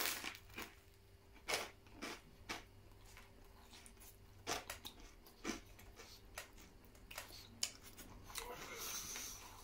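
A bite into a crisp slice of toasted bread topped with cheese spread and meat, then chewing with sharp crunches every half second to a second.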